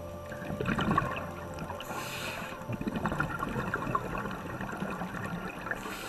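Scuba diver breathing through a regulator underwater: bubbling, gurgling exhalations about one and three seconds in, and a hiss of inhalation about two seconds in and again at the end.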